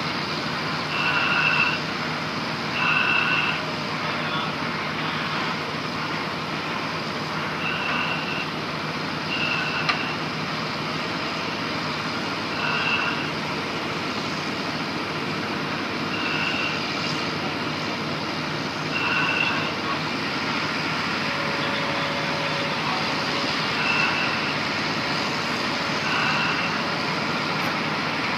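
Heavy diesel plant running steadily, with about ten short high beeps at irregular intervals over it.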